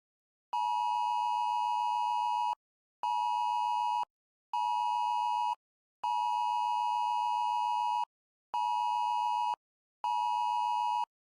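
Mock Emergency Alert System attention tone, a harsh two-pitch buzz, sounding in six pulses: one of about two seconds, two of about a second, then the same again, each separated by a half-second gap.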